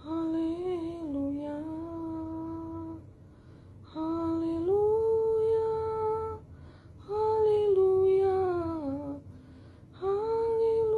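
A woman humming a slow, wordless tune in long held notes, in four phrases with short pauses between them.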